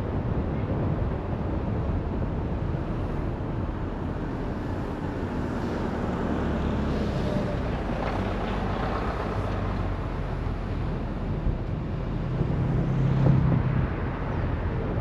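Car driving along a road: steady engine and tyre noise, with a louder low drone for a couple of seconds near the end.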